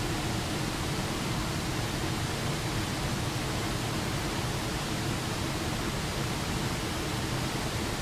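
Small waterfall pouring over a rock ledge into a shallow creek: steady, unbroken rushing of falling and flowing water.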